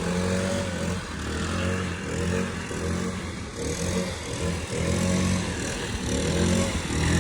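Petrol lawn mower engine running steadily, its level swelling and easing every second or so.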